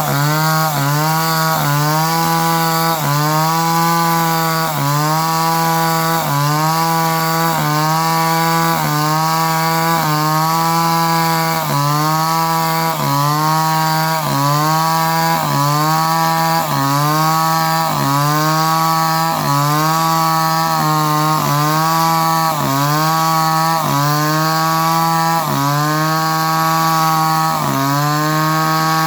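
Chainsaw engine running at high revs while cutting wood, its pitch dipping briefly and recovering about once a second under the load of the cut.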